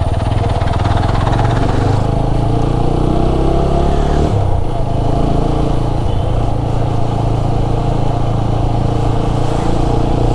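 TVS Apache RTR 200 4V's single-cylinder engine running under way, revs climbing for a couple of seconds and then dropping sharply about four seconds in at a gear change, then running steadily.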